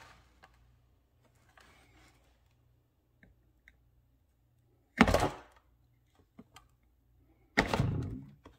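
A clear plastic storage container being handled while a hot soldering iron is pressed through its end to melt a hole; mostly quiet, with two sharp plastic knocks about two and a half seconds apart.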